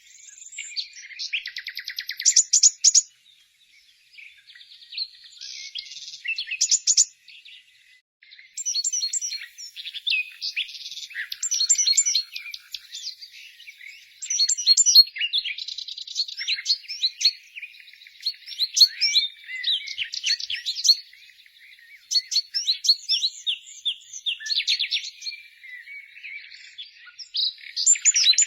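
Several small songbirds chirping and singing, their calls overlapping, with fast trills of rapid repeated notes mixed among short high chirps and brief lulls between bouts.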